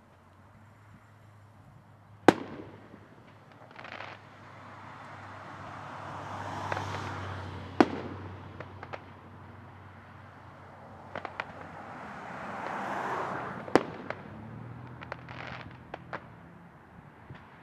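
Fireworks going off: three sharp bangs of bursting shells, about two seconds in, near the middle and a few seconds before the end, with two swells of crackling and scattered smaller pops between them.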